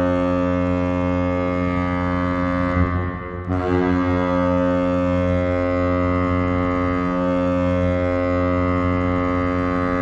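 The 1994/95 Prince Edward Island Senators' ice hockey goal horn sounding long, steady blasts: one cuts off about three seconds in, and after a short break a second blast starts and holds on.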